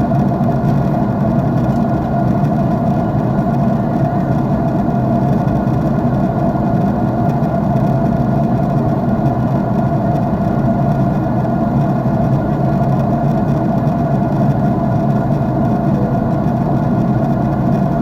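Jet airliner cabin noise: the steady, unbroken drone of the engines and rushing air, heaviest in the low range, heard inside the passenger cabin.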